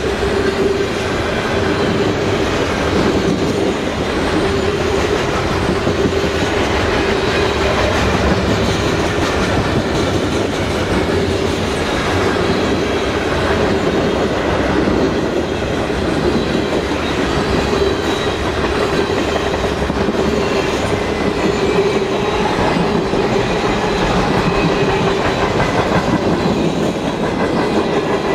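Freight cars of a long train rolling steadily past: covered grain hoppers followed by centerbeam lumber cars and boxcars. Their steel wheels clack over rail joints, over a constant rumble with a steady whine underneath.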